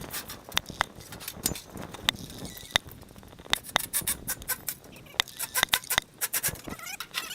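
Irregular metal clanks, knocks and rattles of a sheet-steel panel being worked loose and pulled off an air conditioner's coils.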